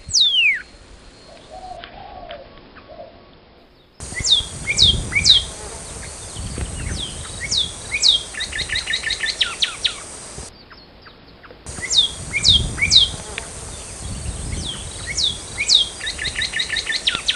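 Northern cardinal singing: two song phrases, the first about four seconds in and the second about twelve seconds in. Each phrase is a few steep, down-slurred whistles followed by a fast run of short repeated notes.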